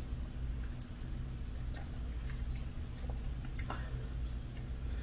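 Faint wet mouth sounds of a person eating a mouthful of fufu dipped in slimy okra soup, with a few small clicks, over a steady low hum.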